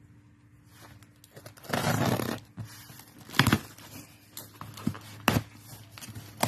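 Scissors slitting and tearing the packing tape on a cardboard box, a ripping scrape about two seconds in. Then the cardboard flaps are pulled open, with two sharp knocks and some rustling.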